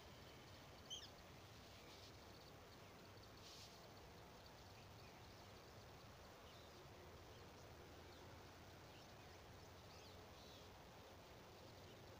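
Near silence: faint, steady outdoor background hiss, with one brief high chirp about a second in.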